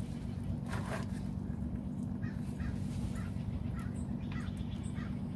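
A bird, likely a crow, calling in a string of short calls over a steady low hum.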